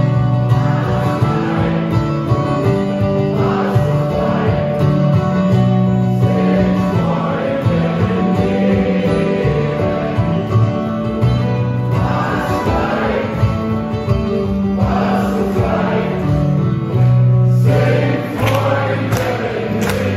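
Live acoustic music: two acoustic guitars playing with sung vocals, which sound like several voices.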